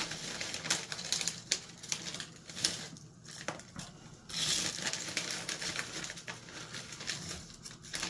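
Irregular crunching and crinkling close to the microphone, dotted with sharp clicks, like crunchy snack food being chewed; it comes in louder spells near the start and again from about four seconds in.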